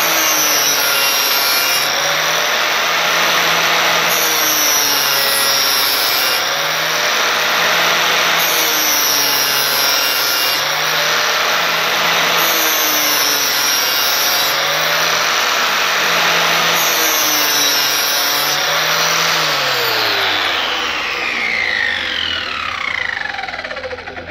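Electric angle grinder with a 60-grit flap disc grinding the edge of a steel lawnmower blade held in a sharpening jig, its motor pitch dipping every few seconds. Near the end it is switched off and its pitch falls steadily as it winds down.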